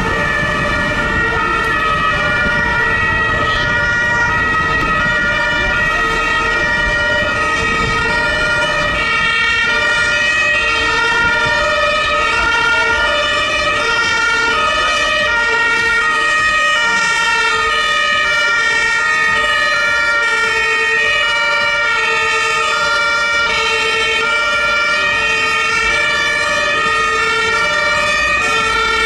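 Two-tone sirens of German fire engines sounding, more than one overlapping, each switching between a low and a high note about every three-quarters of a second, with a steady high tone held beneath and the rumble of traffic underneath.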